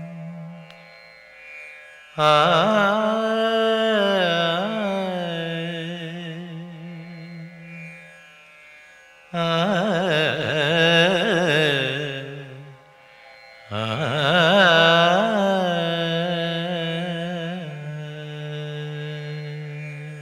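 Carnatic-style Malayalam film song introduction music. Three long melodic phrases each start suddenly, with quavering, bending pitch, over a steady sustained low note.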